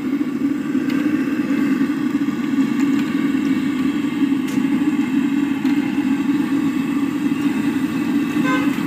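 Samosas deep-frying in a large pot of oil on a street-food cart, heard as a loud, steady low roar with sizzling.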